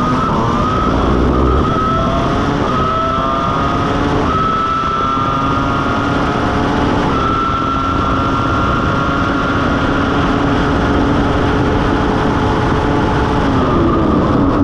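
Ferrari F2004's 3.0-litre V10 Formula 1 engine at full throttle, heard onboard: the pitch climbs and drops sharply at each upshift, about three times in the first seven seconds, then holds high and slowly rising along the straight, and falls near the end as the car brakes and changes down for a corner.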